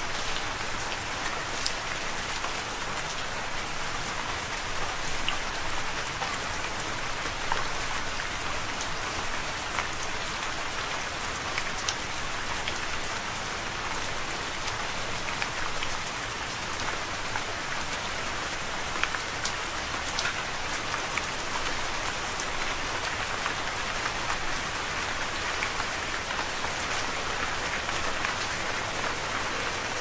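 Steady rain, an even hiss with individual drops ticking sharply here and there throughout.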